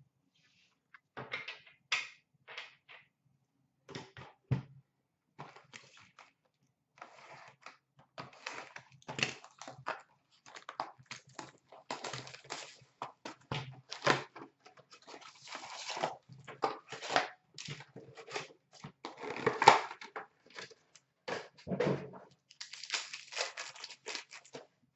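An Upper Deck SP Authentic hockey card box being opened by hand and a card pack torn open: irregular handling of cardboard and pack wrappers, with crinkling, tearing and scattered knocks, and a denser burst of crinkling near the end.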